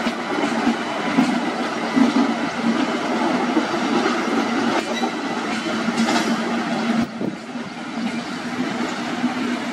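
Express train with a WAP-7 electric locomotive and LHB coaches rolling past: steel wheels running on the rails with clickety-clack over the joints, under a steady low hum, easing a little about seven seconds in as the coaches go by.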